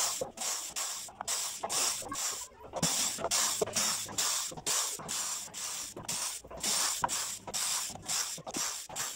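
Spray hissing in short repeated bursts, about two a second, as a lacquer finish is sprayed on.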